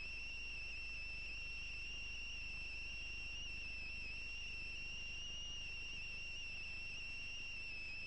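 A steady high-pitched electronic whine with a fainter, higher tone above it and a low hum beneath, unbroken throughout.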